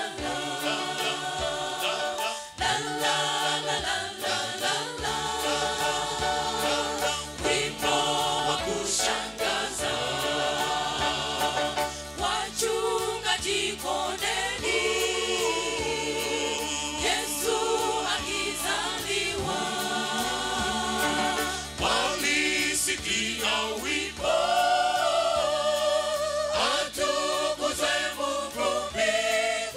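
A mixed choir of women and men singing a Swahili gospel song into microphones, amplified through a sound system, with low bass notes under the voices from about five seconds in.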